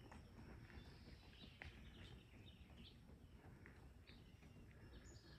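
Near silence: faint outdoor ambience with a low rumble and scattered faint, short bird chirps.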